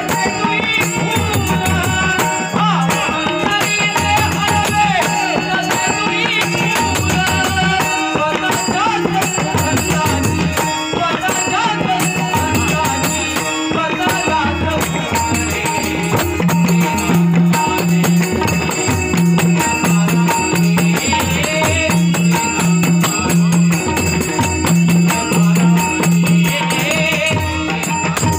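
Live Marathi bhajan music: a pakhawaj barrel drum and tabla beat a steady rhythm, small hand cymbals jingle, and a harmonium holds sustained notes. A singing voice is heard mostly in the first half, and the drum strokes grow stronger from about halfway on.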